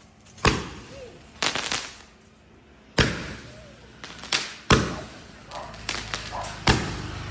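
Fireworks going off: a series of sharp bangs a second or more apart, each with a short echoing tail, and a quick crackling burst about a second and a half in.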